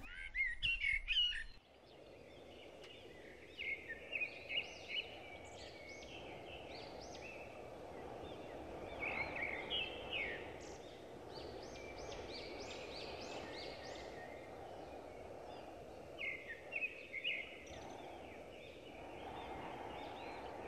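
After a brief louder sound in the first second or so, birds chirp in short clusters of quick up-sweeping notes a few seconds apart, over a steady low hiss of outdoor ambience.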